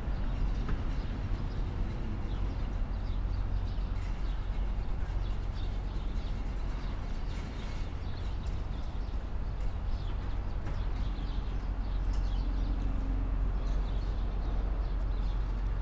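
Footsteps of a person walking on a paved path, over a steady low rumble of city traffic.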